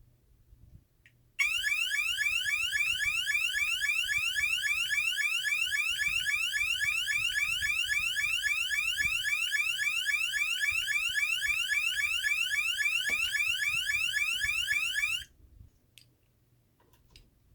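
Federal Signal SLM800R high-output electronic alarm sounder playing one of its tones: a rapid train of rising sweeps, several a second, starting about a second and a half in and cutting off suddenly about fourteen seconds later.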